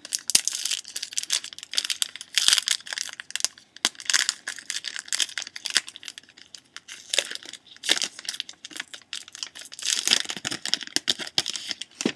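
Foil wrapper of a hockey card pack being torn open and crinkled in the hands, a dense, irregular crackle that stops abruptly at the end.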